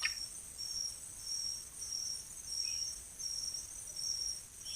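Forest insect chorus: one insect calling in short, evenly repeated high pulses, about three every two seconds, over a steady high hiss of other insects.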